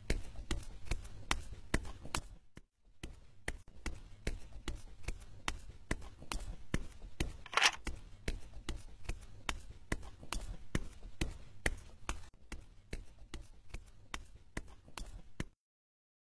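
Soft cartoon footstep taps of a sneaking mouse, short clicks about three a second over a faint low rumble, with a brief hiss about halfway through. The taps stop about a second before the end.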